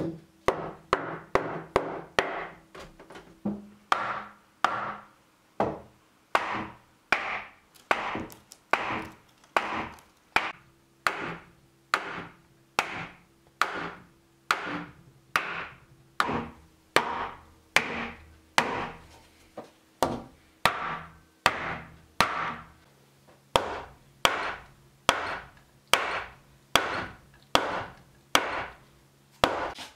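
Wooden mallet striking heavy timber over and over, driving a workbench leg's tenon home into the thick bench top. The blows come about two a second at first, then settle to roughly one a second, each a sharp knock that rings briefly through the beams.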